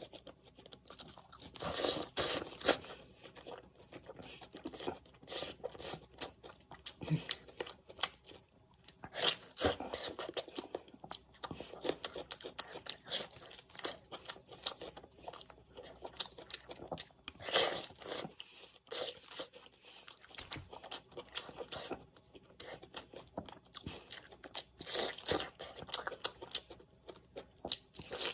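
A person chewing and crunching food, with irregular crunchy bites throughout.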